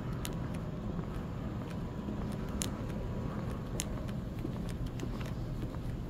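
Steady low hum and rumble of background noise in a large indoor concourse, with a few scattered sharp clicks about a second or more apart.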